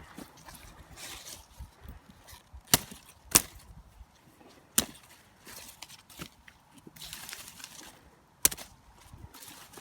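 Brassica leaves and stalks being snapped off by hand: four sharp cracks spread over several seconds, with leaves rustling between them.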